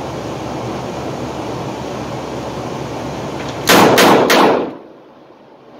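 Three rapid .357 Magnum shots from a stainless revolver, about a third of a second apart: a triple tap. They are fired on an indoor range, so they ring off concrete walls.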